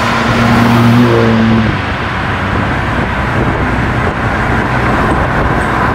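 Car engines and tyre noise as a convoy of cars drives along a highway. A steady engine note is heard for the first second and a half or so, then it gives way to an even rush of road noise.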